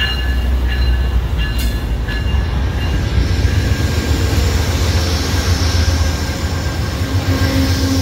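Amtrak GE P42DC diesel locomotive rolling slowly past at close range as the train pulls into the station: a loud, steady deep engine rumble. A wash of rushing noise builds from about three seconds in, and short ringing tones come and go over the first three seconds.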